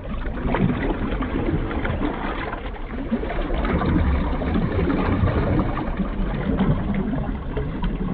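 Water ambience: a continuous busy sloshing and crackling over a low rumble.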